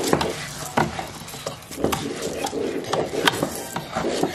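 Black plastic spatula stirring and tossing rice in a stainless steel pot: the rice grains rustle, and the spatula scrapes and knocks against the pot's side and bottom at irregular intervals.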